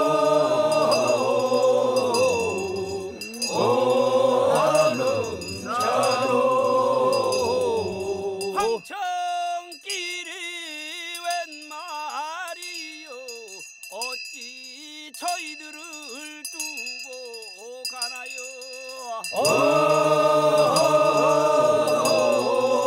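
Men's funeral procession chant in call-and-response, a Korean bier-carriers' song: a chorus chants together, then about nine seconds in a single lead voice sings a wavering line alone for roughly ten seconds, and the chorus comes back in near the end.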